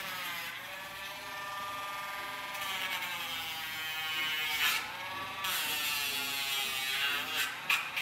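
Dremel rotary nail grinder whining as it grinds a dog's nails, its pitch dipping several times. Short sharp ticks come in near the end.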